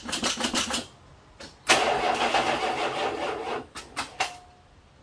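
Starter of a Plymouth Volare's 318 V8 trying to crank on a dead battery, without the engine catching. First a short stuttering burst, then about two seconds of continuous cranking, then a few clicks.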